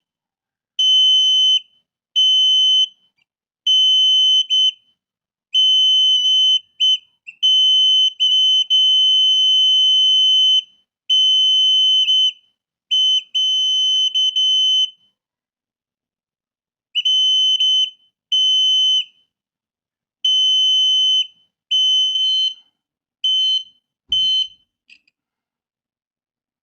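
Alarm buzzer of a laser-beam burglar alarm sounding a steady high-pitched tone in about a dozen on-off bursts of irregular length, from under a second to about three seconds, as the laser beam on the light sensor is interrupted. Near the end the bursts turn short and choppy.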